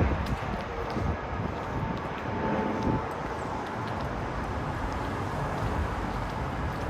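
Outdoor city ambience: wind rushing on the microphone over a steady rumble of traffic.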